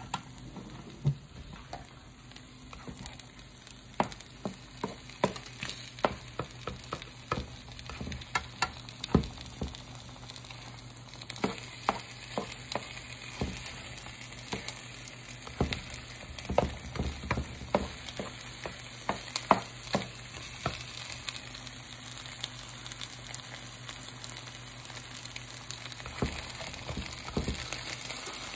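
Eggs scrambling in a hot nonstick pan: a steady sizzle with repeated scrapes and taps of a metal spatula against the pan. The sizzle grows louder about halfway through.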